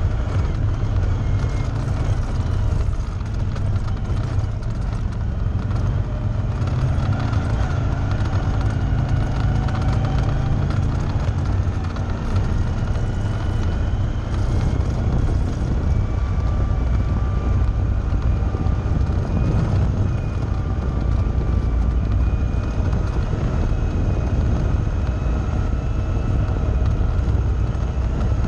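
Off-road vehicle's engine running steadily as it drives along a dirt trail, its pitch drifting a little with the throttle.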